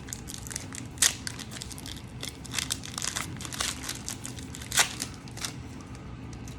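Foil Pokémon booster pack wrapper crinkling and crackling as it is handled and opened, with sharper crackles about a second in and again near five seconds.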